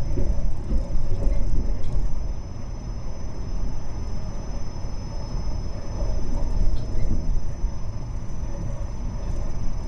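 Passenger train running, a steady low rumble that is louder for the first two seconds and then settles, with a faint steady high-pitched tone over it.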